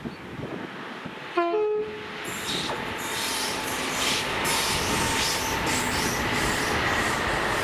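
Class 88 locomotive sounding a short two-tone horn, a low note then a higher one, about a second and a half in. It is followed by the freight train approaching and passing, with wheel and rail noise building and a faint steady high whine.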